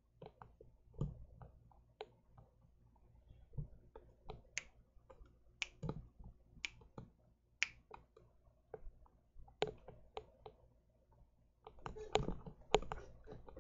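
Finger snaps keeping a steady beat, about one a second, among softer clicks and taps.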